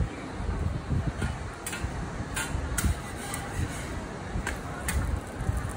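Metal spatula scraping and tapping on a flat-top steel griddle while a pancake is worked and flipped: a handful of sharp clicks over a steady low rumble.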